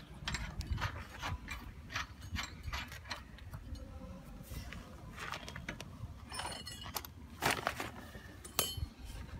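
Nuts and washers being put onto the steel bolts of a tank outlet flange by hand: irregular small metal clicks, clinks and scraping.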